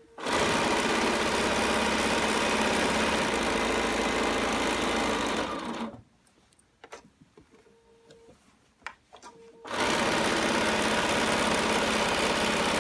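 BERNINA 770 sewing machine with a walking foot, stitching at a steady speed, stopping about six seconds in for nearly four seconds with a few small clicks, then stitching again. The stop is a pause with the needle down while the presser foot is raised and the fabric is pivoted at a corner.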